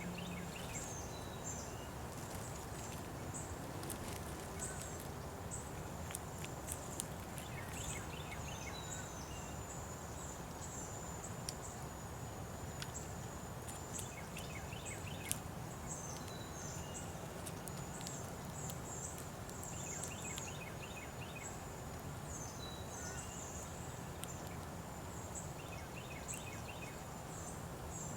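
Small birds chirping and calling over and over in short high notes, with a few quick trilled runs of repeated notes, over a steady low background hum.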